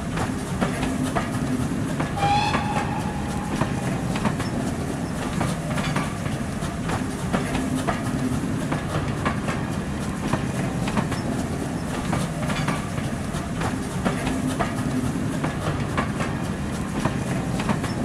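Train running on rails, its wheels clicking over the rail joints in a steady rhythm over a constant low rumble, with a brief whistle about two seconds in.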